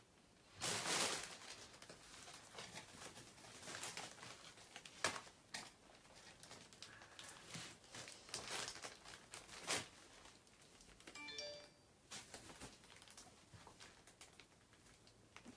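Faint rustling and crinkling handling noise, with a louder burst about a second in and more scattered rustles after it. A brief chime sounds about three-quarters of the way through.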